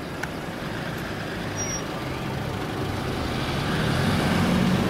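A car driving past close by, its engine and tyre noise growing louder toward the end.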